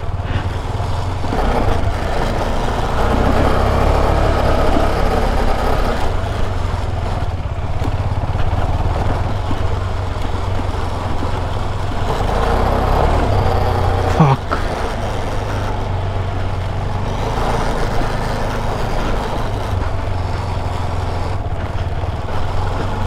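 KTM 250 Adventure's single-cylinder engine running steadily as the motorcycle is ridden along a dirt trail, with one short sharp noise about fourteen seconds in.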